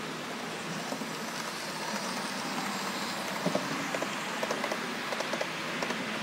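Model trains running on a layout: a steady running noise from wheels and motors, with a string of quick clicks from about three and a half seconds in as a train passes over the track.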